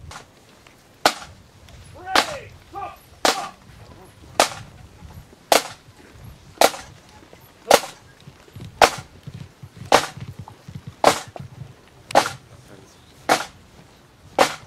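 Pipe band snare drums beating a slow, steady march: one sharp crack about every second, with no pipes playing.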